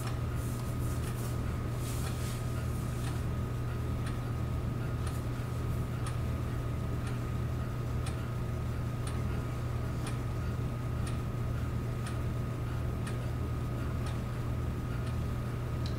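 A steady low hum with a soft tick about once a second.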